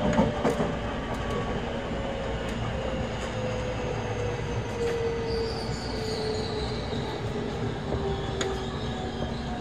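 Tokyo Metro 03 series VVVF-inverter train car running, heard from inside the car: a steady rumble of wheels on rails with a faint whine that slowly falls in pitch, and a few short clicks.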